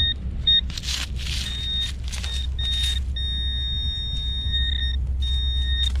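Metal detecting gear's electronic tone sounding over a buried target: a few short beeps at first, then a steady held tone through the middle, broken again near the end. A few short rustling noises in the leaf litter come in the first half.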